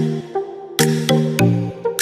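Electronic background music with a steady beat and bass line.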